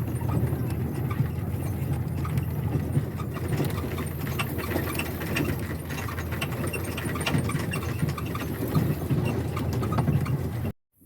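Tractor engine running steadily, a low rumble with frequent small rattles and knocks over it, cutting off abruptly near the end.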